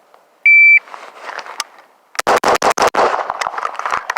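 Shot timer giving its start beep, then about a second and a half later a fast string of about five gunshots in under a second, the first string of a timed drill.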